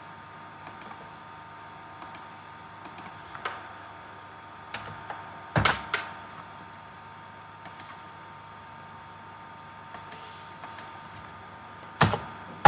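Irregular single clicks from a computer mouse and keyboard, every second or so, with a louder knock about halfway through and another near the end, over a faint steady hum.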